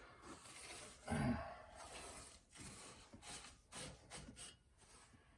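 Faint handling sounds: a sharp breath about a second in, then a few light knocks and rubs.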